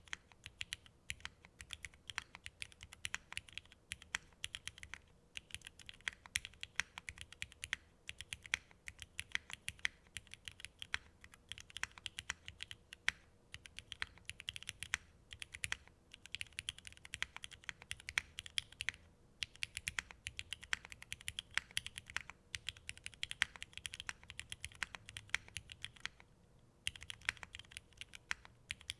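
Typing on a Singakbd Unikorn mechanical keyboard with Cherry MX Black Ultraglide linear switches, an aluminium plate and GMK Jamon keycaps. Fast, steady runs of keystrokes are broken by brief pauses every few seconds.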